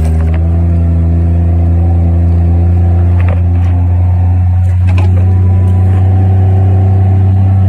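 Vehicle engine running steadily under light load as it drives over a bumpy dirt track, heard from on board, its pitch shifting slightly about halfway through. A few light knocks come in the middle.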